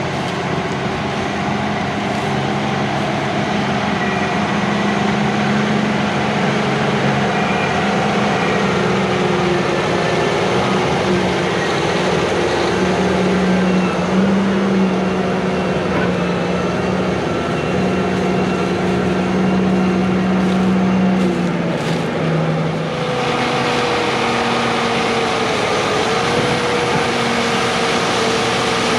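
Heavy farm machinery engine running steadily at working speed, with a steady hum and whine over it. About 23 seconds in the sound changes: the low hum drops and a different steady whine takes over.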